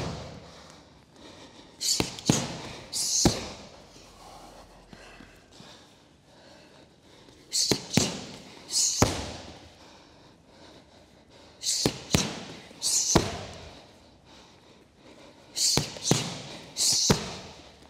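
Boxing-gloved punches and a kick smacking leather Thai pads: a hook, a cross and a switch kick in quick succession. The three-strike combination comes four times, about every four seconds.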